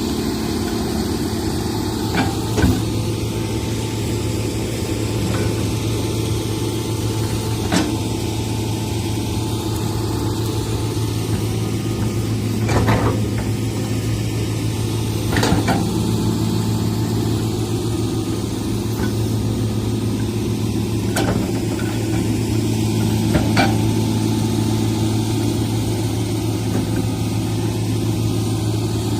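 Excavator's diesel engine running steadily, with a few sharp knocks scattered through, about seven, such as the bucket or tracks striking.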